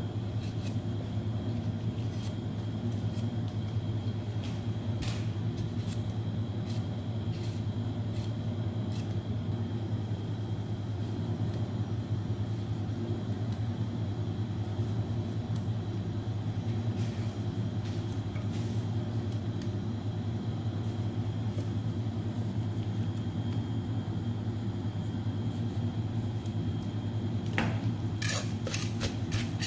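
A steady low hum throughout, with faint scattered clicks of a knife slicing shallots and tomatoes in the hand over a clay mortar. Near the end a wooden pestle starts pounding in the clay mortar, a quick run of sharp knocks, about three a second.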